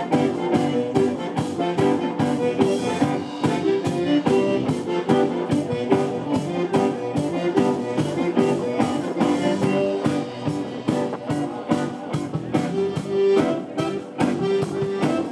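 A band playing an instrumental passage with a steady beat.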